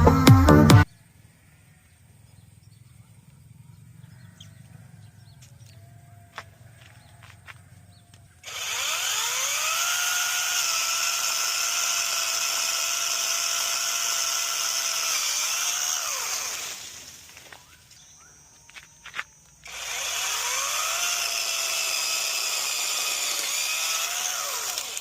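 A chainsaw run twice: once for about eight seconds, then for about five, each time spinning up to a steady high whine and winding down.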